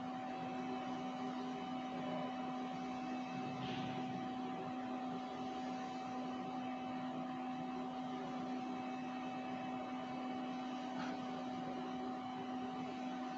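Steady hum holding a low tone and a higher tone over a hiss of room noise, with two faint squeaks of a marker on a whiteboard, one about four seconds in and one near eleven seconds.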